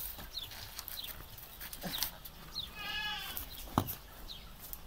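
A short wavering animal cry, about half a second long, comes about three seconds in, followed by a sharp knock. Faint short high chirps repeat throughout.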